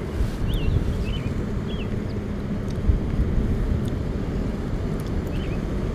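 Steady low outdoor rumble with no speech, broken by a few short, high chirps.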